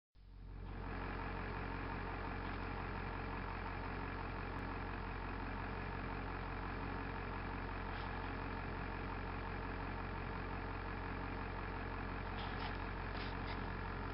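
Truck engine idling steadily, heard from inside the cab, fading in over the first second.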